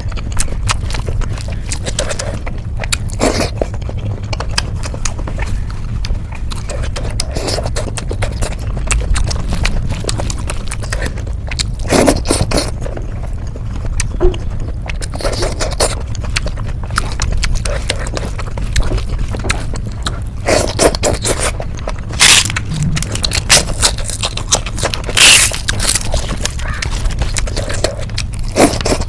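Mukbang eating sounds of matar paneer and rice: food being scraped up from a plate and chewed, in many short clicks and scrapes over a steady low hum.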